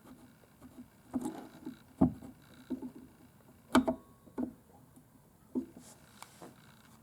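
Scattered light knocks and clicks of small objects being handled, about half a dozen, the loudest about 2 and 4 seconds in.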